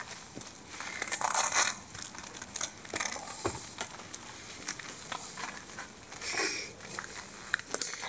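Footsteps crunching over rubble and undergrowth, with leafy branches rustling against the body while walking through overgrowth. The rustling comes in irregular bursts, with a few sharp cracks near the end.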